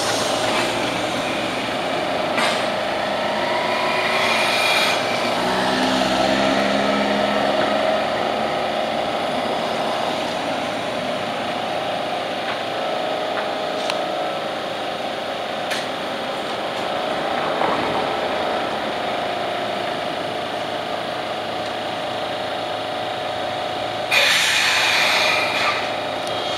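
Toyohashi Railway Mo780 tram standing at a stop, its onboard equipment running with a steady mechanical hum and whine. A loud burst of hissing comes about 24 seconds in.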